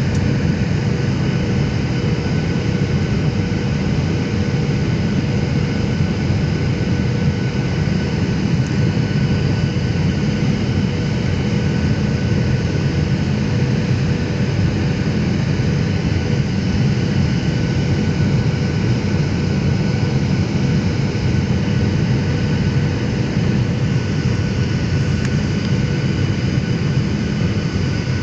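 Steady cabin noise of a jet airliner on final approach, heard inside the cabin: a low, even rumble of engines and airflow with a few faint steady whines above it.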